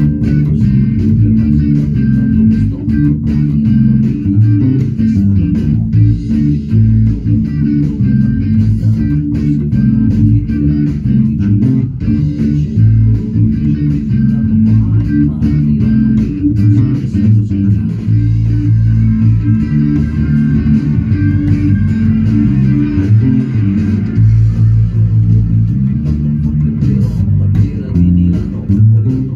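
Electric bass guitar playing an improvised arrangement of a song: a continuous line of low plucked notes that keep changing pitch.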